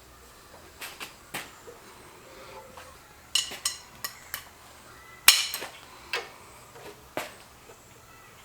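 Scattered metallic clinks and knocks of tools and parts being handled during an engine teardown, irregular, with the loudest knock about five seconds in.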